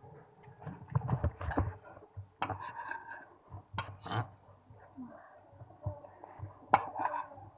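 Eating sounds: irregular clicks and smacks of chewing and utensils, with a couple of brief murmured vocal sounds.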